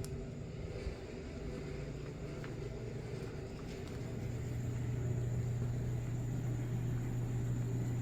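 A steady low mechanical rumble or hum that grows louder about four seconds in, with a faint thin high tone alongside.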